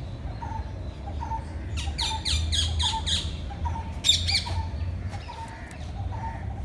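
Birds calling in the trees: one bird repeats a short, even note about two to three times a second, while louder harsh squawking calls break in around two seconds in and again around four seconds in.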